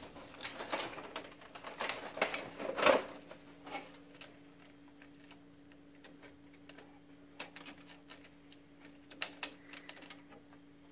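Plastic clicks and clatter as the front door of an HP LaserJet M601 laser printer is opened, loudest about three seconds in, then a few scattered light clicks as the feed rollers are unclipped by hand from their shaft.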